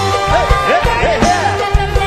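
Live mor lam band music: a steady drum beat under a melody line with sliding, ornamented notes, with singing.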